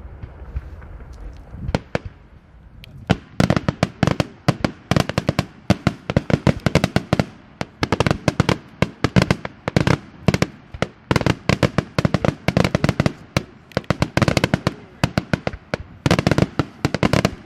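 Daytime aerial fireworks: after a low rumble with a couple of lone cracks, showers of small firecrackers start bursting about three seconds in, in a dense, rapid crackle of sharp bangs, many a second.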